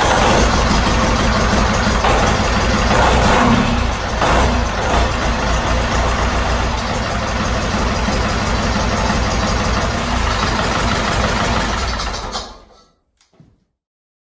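Freshly rebuilt David Brown 950 tractor engine running steadily with an even low throb, briefly louder a few seconds in. The sound fades out near the end.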